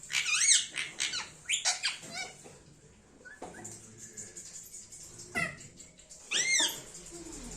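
Indian ringneck parakeet giving shrill, rising-and-falling squawks: several in quick succession in the first two seconds, then a pause, then two more calls near the end, the last one loud.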